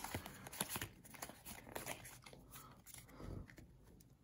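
Pokémon trading cards being handled and shuffled in the hands: faint sliding and rustling of card stock with light clicks, and a sharper click right at the start.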